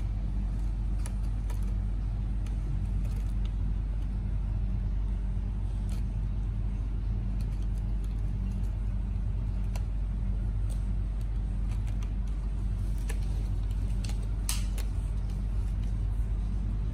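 A steady low hum with scattered light clicks and scratches of a kitten's claws on the sisal rope of a scratching post, a short cluster of them near the end.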